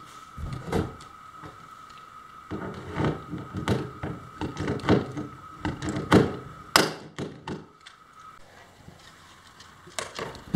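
Hand pop-rivet tool being worked to set rivets through a metal edge strip on a kayak hull: a run of clicks and knocks, with a sharp snap about seven seconds in, then a few more clicks near the end.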